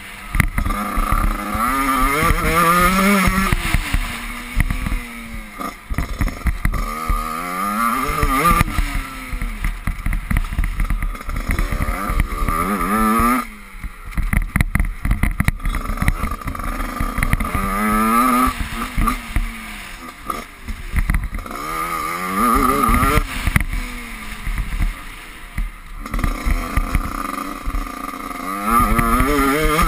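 Dirt bike engine under way on a motocross track, its pitch climbing again and again as the rider accelerates and shifts up, dropping between climbs, with the throttle shut for a couple of seconds around the middle. A constant low rumble runs under the engine.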